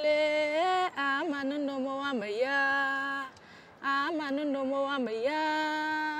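A single voice singing long held notes joined by short ornamented turns, with no instruments heard, and a brief pause for breath a little past halfway.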